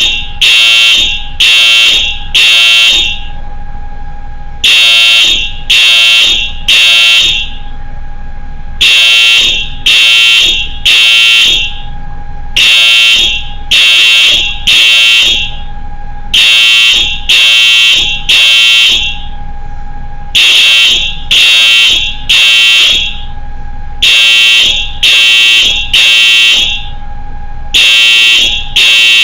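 Wheelock EHS-DL1 electronic fire alarm horn sounding a coded signal: groups of three short blasts about a second apart, each group starting every four seconds, mimicking a zone-coded alarm for zone 4. A faint steady tone runs underneath.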